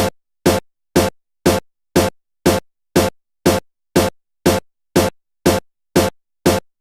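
Background electronic music: a short, identical beat hit repeated twice a second, with silence between hits.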